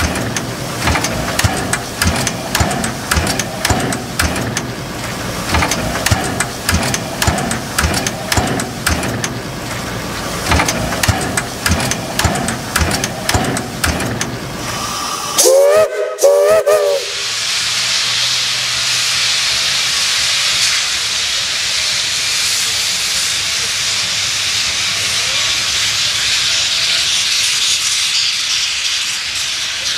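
Shay geared steam locomotive working, its exhaust beating in a quick run of chuffs. About halfway through, its steam whistle gives a short, wavering blast. After that, a steady hiss of escaping steam takes over.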